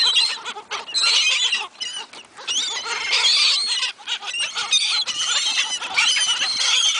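A flock of seagulls calling over one another, a dense chorus of squealing cries as they crowd in for thrown food.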